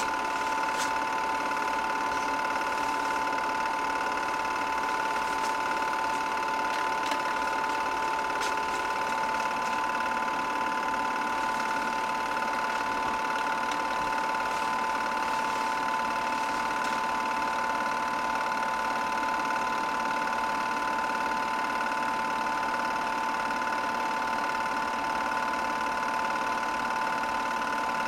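8mm film projector running, a steady mechanical whir with a constant high whine and a few faint ticks.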